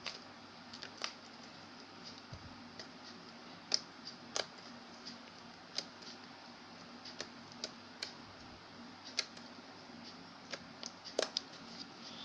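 Soft, foamy clay slime being handled, giving off small sharp clicks and pops at irregular intervals, about a dozen in all.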